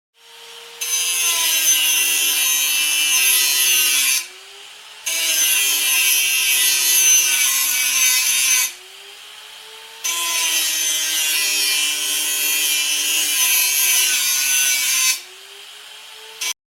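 Angle grinder sound effect: three long grinding passes of about three to five seconds each. Between passes the motor's whine is heard alone, rising in pitch.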